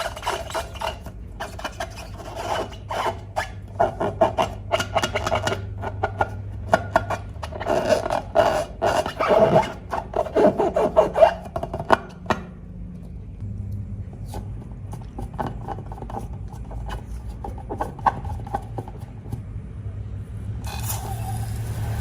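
Slime being stirred and worked, quick scraping, crackling strokes in a dense run that thins to sparse faint clicks about halfway through. A steady low hum starts near the end.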